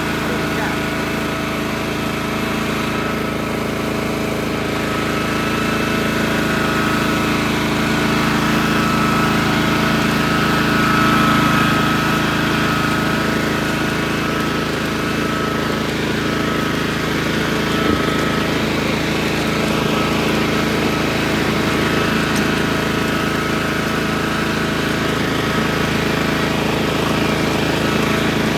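Walk-behind brush mower's small single-cylinder gasoline engine running steadily at working speed while mowing a path through tall grass.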